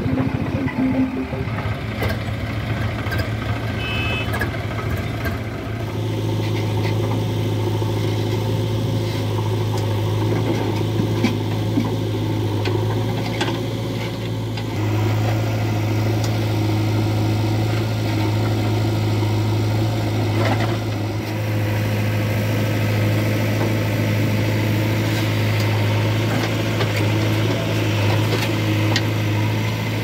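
Diesel engine of a JCB 3DX backhoe loader running steadily with a low hum while the backhoe works, picking up a little about halfway through.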